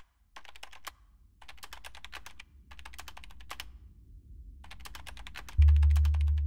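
Computer keyboard typing in quick runs of keystrokes with short pauses between them, over a faint low drone. About five and a half seconds in, a loud deep bass tone of electronic music comes in.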